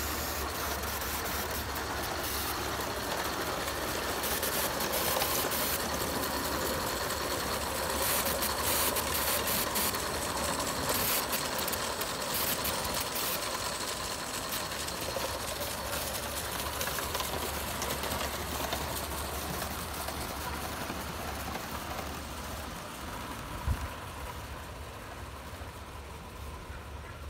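Live-steam model locomotive and its wagons running on a raised garden track: a rapid, even mechanical patter with fine clicks of wheels on rail, fading toward the end as the train draws away. One short knock near the end.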